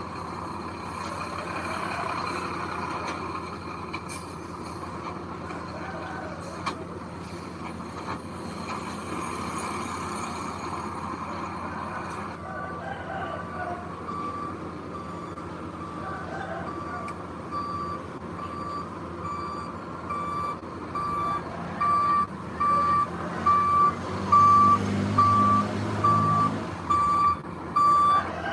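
A heavy vehicle's engine runs steadily, and about halfway through a reversing alarm starts beeping about once a second. The beeps grow louder toward the end as the machine backs closer.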